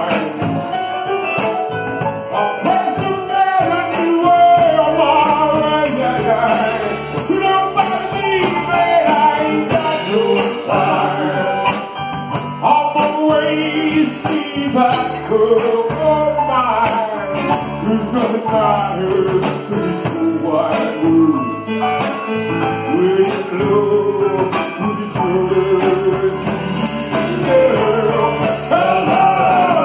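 Live band music with singing over electric bass and a steady beat.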